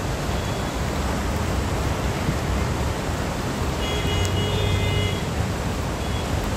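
Floodwater rushing down a street in heavy rain, a steady even rush. A brief steady high tone sounds about four seconds in and lasts about a second and a half.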